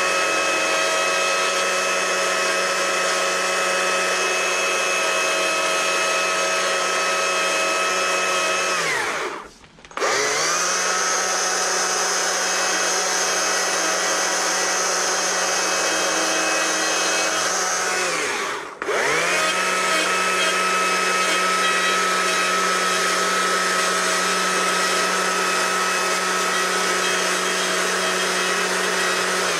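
Stihl carving chainsaw running steadily with a high whine as its bar cuts into a wooden bear's face. It winds down and stops twice, about nine and nineteen seconds in, each time spinning straight back up.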